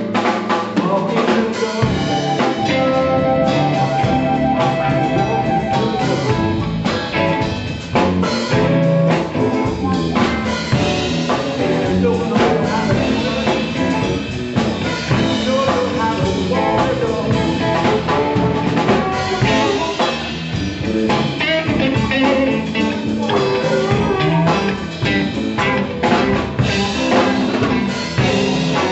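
Live blues band playing, with electric guitars, keyboard and drum kit.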